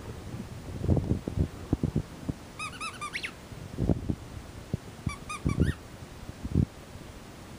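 Rubber squeaky dog toy squeaked in two quick runs of about four short, high squeaks, each run ending in a gliding squeak, among soft thumps.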